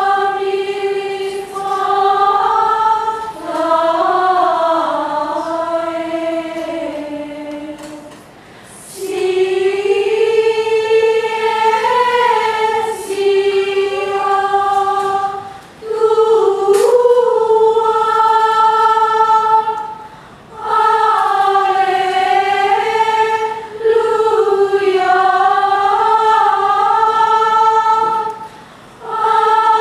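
Women's choir singing Gregorian chant unaccompanied: long held, slowly moving sung phrases, with four short breaks between phrases.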